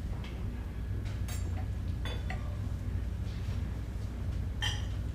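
A few light clinks and taps of kitchen utensils against dishes over a steady low room hum.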